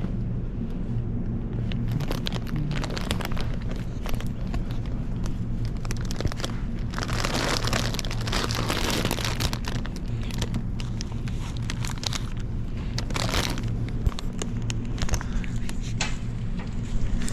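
Plastic shopping packaging crinkling and rustling in many short crackles, with a longer spell of rustling about seven to nine seconds in, over a steady low hum.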